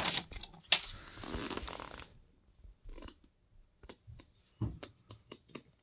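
Paper pamphlet rustling as it is handled for about two seconds, with one sharp click, then a few scattered light clicks and taps of things being handled in a cardboard box.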